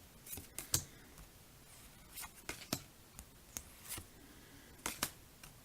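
A handful of faint, irregular clicks and taps of Pokémon trading cards being handled.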